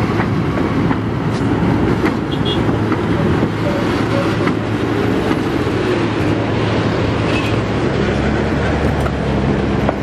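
GE 65-ton diesel switcher locomotive's engines running steadily as it moves off over a road crossing, with a few sharp clicks along the way. Road traffic, cars, a pickup and a bus, then drives across the tracks, and engine hum grows stronger near the end.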